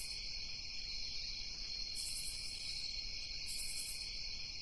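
Chorus of insects, such as crickets, with a steady high buzz and a higher pulsing trill that comes back about every one and a half to two seconds.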